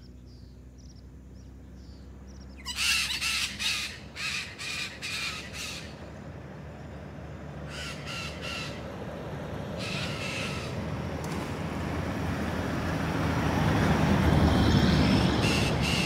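Parrots calling as they fly overhead: a quick run of harsh calls a few seconds in, then a few more spaced out and another near the end. Beneath them a rushing noise swells and is loudest near the end.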